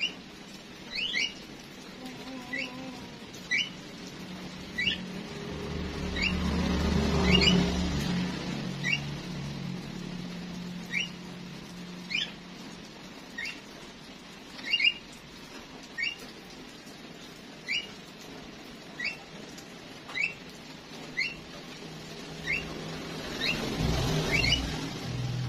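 A small bird chirping, one short, sharp note repeated roughly every second and a bit, over a low background rumble that swells and fades about a quarter of the way in.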